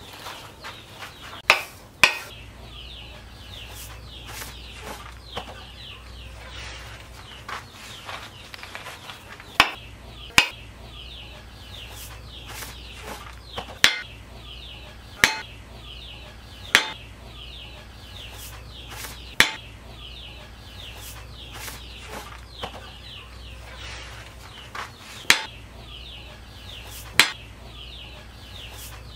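About ten sharp, irregular knocks as the wooden handle of a heavy knife, its hot tang just burned into it, is struck down on a wooden stump to seat the tang. Birds chirp steadily underneath.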